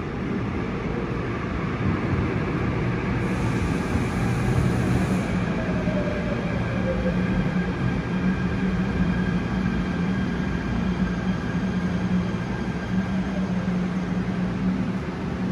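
Seoul Subway Line 7 electric train arriving at an underground station platform behind screen doors: a continuous rumble of the train running on the rails with a steady electric hum. A tone falls in pitch a few seconds in as the train comes in.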